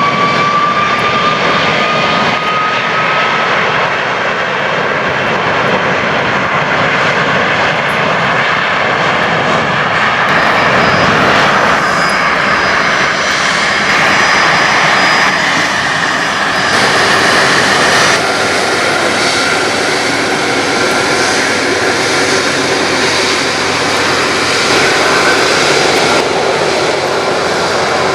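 Airliner engines running loud and steady, a dense rush with a thin whine that rises slowly in pitch over the first few seconds.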